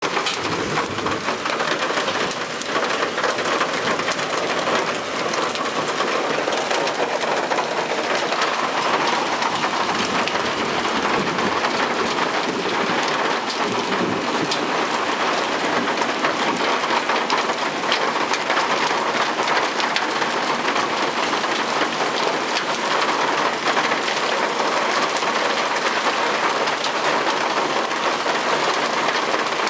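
Hailstorm: hail and heavy rain pelting down outside, a steady dense hiss full of fine ticks from stones striking hard surfaces.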